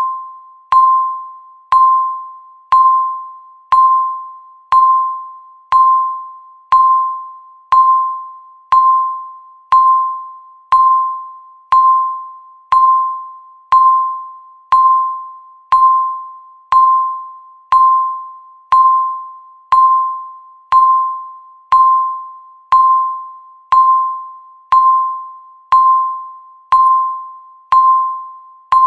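Countdown timer beep: one clear electronic tone struck once a second, each beep starting sharply and fading away, marking off each remaining second of the countdown.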